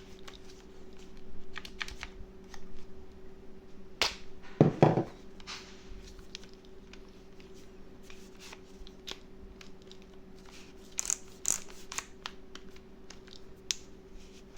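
Handling of a Milwaukee M12 drill/driver and its snap-on head attachment: scattered clicks and plastic knocks as it is fitted and worked, the loudest a sharp click about four seconds in, over a faint steady hum.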